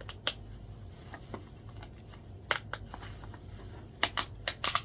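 Sharp clicks and cracks of crawfish being handled in their shells. A few come spaced apart, then a quick run of them near the end.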